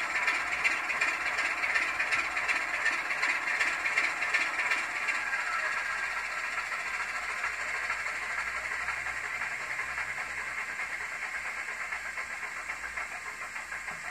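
The DCC sound decoder in an N gauge Graham Farish Class 25 model playing its diesel engine sound through the tiny onboard speaker. The sound is thin and hissy with a fast fine chatter, and it dies away steadily.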